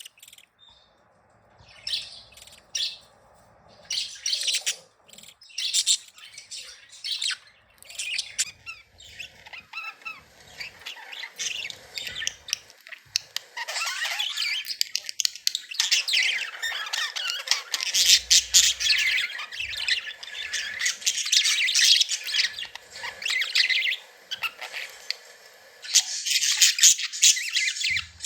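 Budgerigars chattering and squawking, with sharp, separate calls at first and then a dense, continuous run of fast warbling chatter about halfway through.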